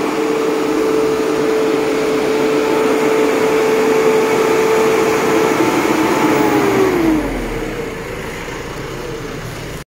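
New Holland tractor running at high revs with a steady whine while its front loader carries round bales. About seven seconds in, the whine slides down and the engine eases off.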